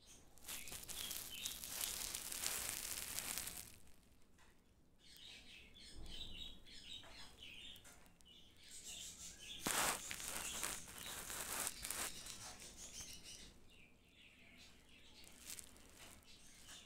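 Baby Indian palm squirrel scrabbling on a terry towel, making soft rustling in two longer stretches, near the start and around the middle. Faint high chirps come in between.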